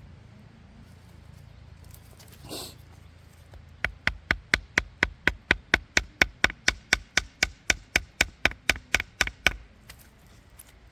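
Rapid, even chopping on a cutting board, about five knife strokes a second for five or six seconds, starting about four seconds in. A short rustle comes before it.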